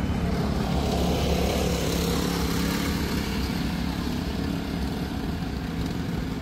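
Parade vehicles driving past close by: a steady low engine hum, with the noise of a passing SUV swelling from about a second in and easing off after about four seconds.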